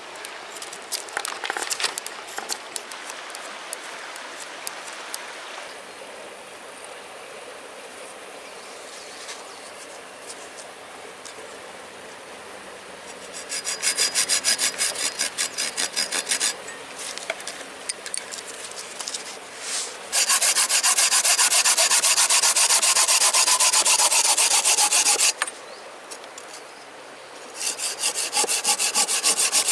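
Folding hand saw cutting through a green, barked branch, fast back-and-forth strokes in three bursts in the second half, the middle burst the longest and loudest. Before that, quieter scraping and small clicks of a knife whittling wood.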